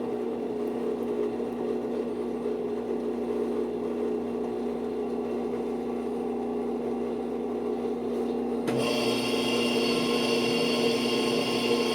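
Brastemp washing machine running steadily with an even motor hum and no rubbing, its drive belt just tightened. About nine seconds in the sound shifts suddenly, getting a little louder as a higher whine joins in.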